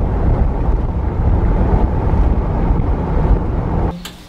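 Steady rumble of wind and road noise from a car driving at highway speed, heaviest in the low end. It cuts off abruptly near the end, leaving a much quieter background with a few faint clicks.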